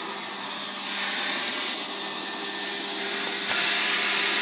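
Handheld electric leaf blower running steadily, blowing air into a charcoal grill to fan the coals. The motor gives a steady whooshing rush with a hum under it, and it gets louder about a second in and again near the end.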